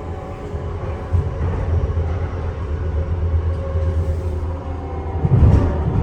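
Train running, a steady low rumble that swells louder about five seconds in.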